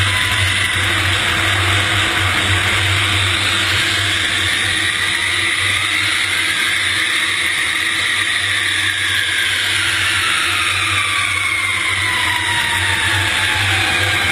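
Jet airliner engines running with a steady rush and a high turbine whine over a low hum. The whine rises and falls in pitch, dropping in the second half.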